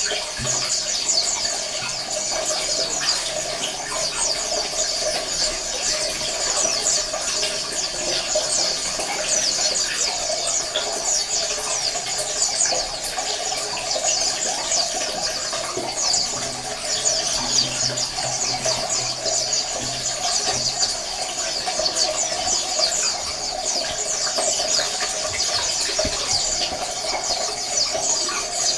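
A colony of white-eyes (pleci, Zosterops) chirping continuously, many high, thin calls overlapping into a dense chatter.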